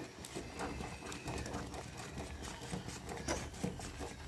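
A utensil stirring flour paste as it cooks in a pot, with irregular light knocks and scrapes against the pot.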